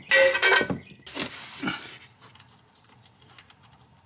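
Ratchet wrench loosening a steel oil drain plug in a truck's oil pan: metallic clicking and clanking in the first two seconds, then much quieter as the plug is turned out by hand, with three faint high chirps about halfway.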